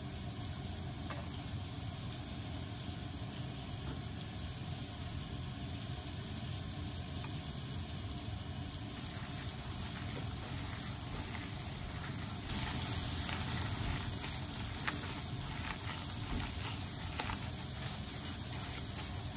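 Daikon slices frying in butter in a pan, a steady sizzle. From about nine seconds in there are small rustles and clicks of plastic-gloved hands mixing mashed taro in a glass bowl. The hiss gets brighter about twelve seconds in.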